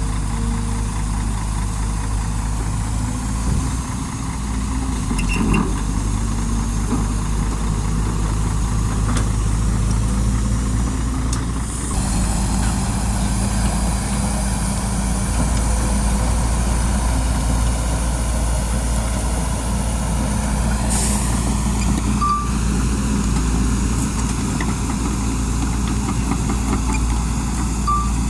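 Heavy diesel machinery engine running steadily under load, with a short air hiss about three-quarters of the way through.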